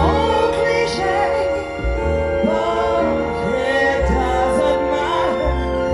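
A slow ballad played live by a pops orchestra: strings holding sustained chords over deep bass notes that change every second or two, with a woman singing a melodic line over them.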